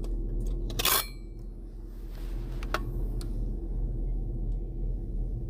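Handling of camera gear: one sharp clink with a short metallic ring about a second in, then a few faint clicks, over a steady low hum.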